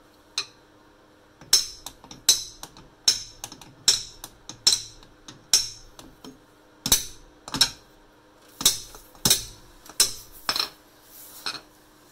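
Hammer striking a steel breaker bar again and again, about fourteen sharp metallic blows in a steady rhythm of a little over one a second, to shock loose a seized, corroded rear strut mounting nut that stays really tight.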